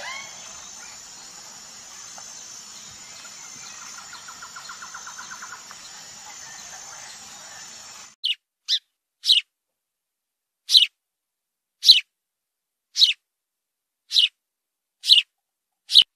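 Faint steady outdoor ambience with a high hiss and a short fast rattling call about four seconds in; then, from about eight seconds, a series of sharp, high, downward chirps from tree sparrows, roughly one a second.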